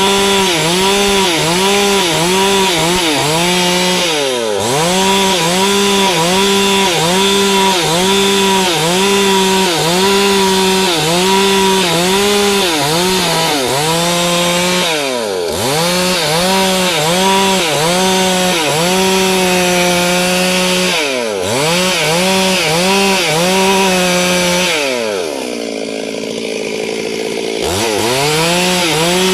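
Stihl two-stroke chainsaw cutting wood at high revs, its engine note wavering as the chain bites. The revs dip and recover three times, then fall off briefly near the end before the saw is revved back up.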